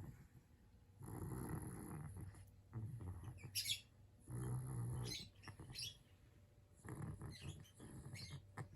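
Yorkshire terrier snoring in its sleep: slow, rough snoring breaths about every three seconds, some with a thin high whistle through the nose.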